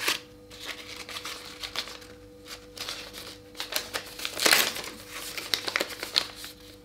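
Paper wrapping cut from a printed book page being unfolded and pulled open by hand: irregular crinkling and rustling, with a louder crinkle about four and a half seconds in.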